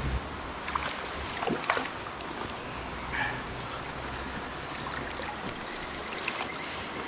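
Mountain stream water rushing steadily, with a few faint clicks and a brief falling sound a couple of seconds in.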